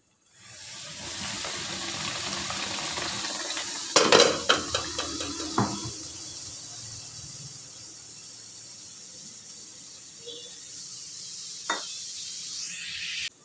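Blended spinach paste hitting a hot oiled iron kadai and sizzling loudly, easing to a gentler frying hiss as it settles. A cluster of metal clanks on the pan about four seconds in, and a single knock near the end.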